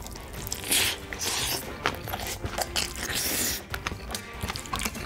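Close-miked mukbang eating sounds: a big mouthful of spicy bean sprout pork bulgogi and rice being bitten and chewed, with wet clicks and crunch from the sprouts.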